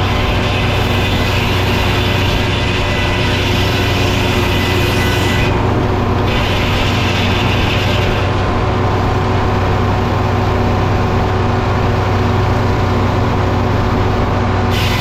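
Frick sawmill running steadily under its engine drone, with a harsher high hiss that cuts out twice and comes back.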